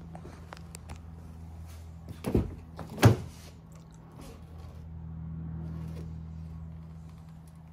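A car door being opened: two thunks about a second apart, the second the louder and sharper, with a few small clicks, over a steady low hum.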